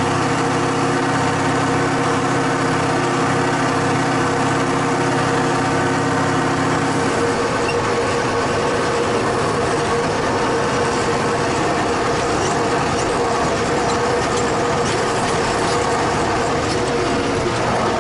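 Tractor engine running steadily. About seven seconds in, its note changes: the deeper tones fall away and a higher steady tone comes forward.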